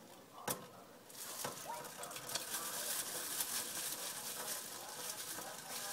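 Vegetable and olive oil heating in a stainless-steel pot on the stove, starting to sizzle with a faint hiss that builds from about a second in. Two light knocks come about half a second and a second and a half in.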